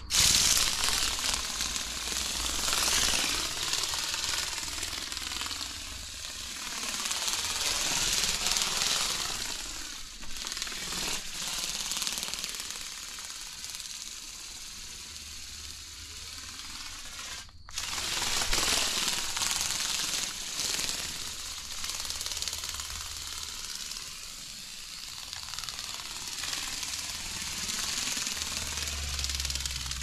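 Micro RC ornithopter toy bird in flight: its tiny geared motor and flapping wings make a rapid buzzing clatter that swells and fades as it flies nearer and farther, with a momentary break partway through.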